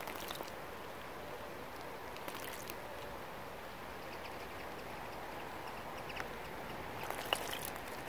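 A black redstart bathing in a shallow birdbath, splashing the water in short bursts: at the start, around two seconds in, and again near the end, over a steady hiss of rain.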